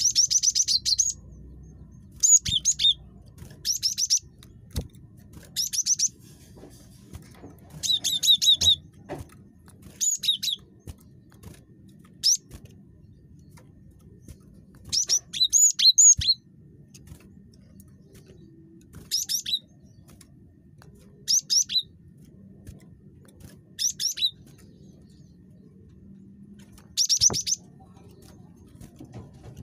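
Cinereous tit (gelatik batu) calling over and over in a chatty run: short bursts of quick, high, repeated notes, some sweeping downward, every second or two.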